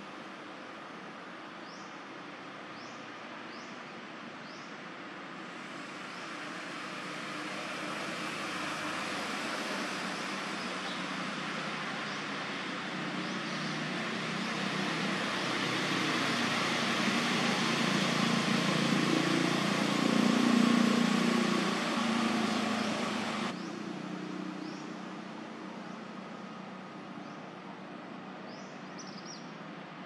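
A motor vehicle passing: a broad engine and tyre rumble swells slowly to a peak about twenty seconds in, then fades over a steady background hiss. A few faint high chirps sound near the start and end.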